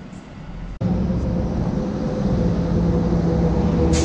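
Quiet outdoor background, then, after an abrupt cut about a second in, an engine running steadily with a low, even hum.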